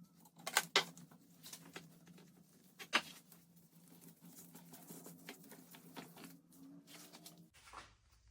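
Scattered light clicks and taps of a lathe chuck and headstock parts being handled as the chuck is removed from the spindle, with a sharper knock about three seconds in.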